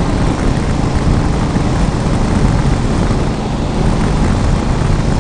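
Motorcycle riding at a steady cruising speed on an open road: a steady engine drone under a heavy, even rush of wind noise.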